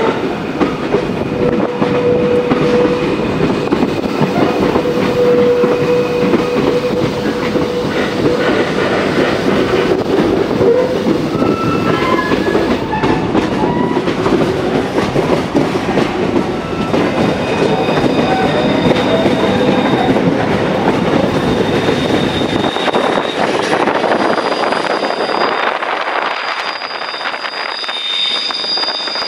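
Passenger train running on the rails, heard through an open carriage window: the steady rumble and clatter of the wheels, with long thin wheel squeals at times, typical of the tight curves of a mountain line. The low rumble drops away about three quarters of the way through.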